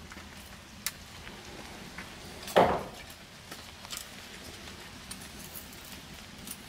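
Scattered light clicks and ticks of gear being handled over a steady faint background hiss, with one louder short noise about two and a half seconds in.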